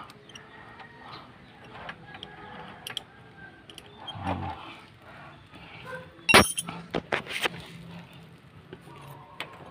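Metal wrench working on a motorcycle nut: scattered small clicks and clinks of steel on steel, with a sharp ringing clink about six seconds in and a few more close after it.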